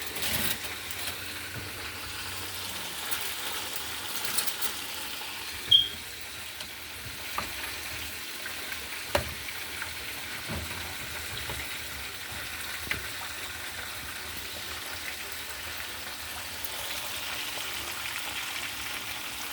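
Chicken frying in hot oil: a steady sizzle, broken by a few sharp clicks, the loudest about six seconds in.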